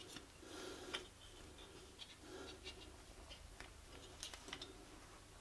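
A few faint metallic clicks and taps as a steel plane iron is handled and reseated in a Veritas Mk II honing guide, the rest near silence.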